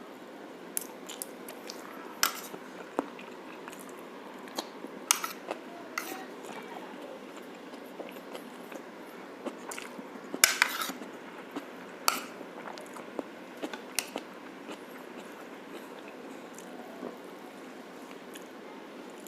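Spoon and fork clinking and scraping against a plate during a meal: scattered sharp clicks, with the loudest cluster about ten seconds in, over a steady background hiss.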